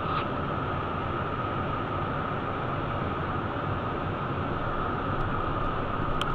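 Steady cockpit noise of a Cessna Citation 501's twin Pratt & Whitney JT15D turbofans in descent: an even rush of air and engine noise with a steady whine over it. A faint click comes near the end.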